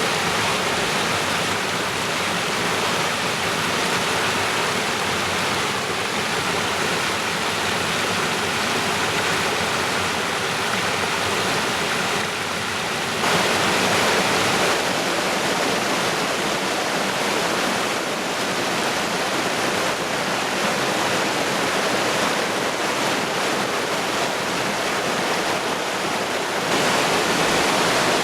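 Creek water rushing over rocks, a steady loud rush that grows a little louder for a second or two about halfway through and again near the end.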